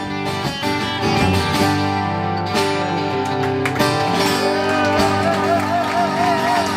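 Country band playing the closing bars of a song after the last sung line, with guitar strumming. A long wavering note is held near the end.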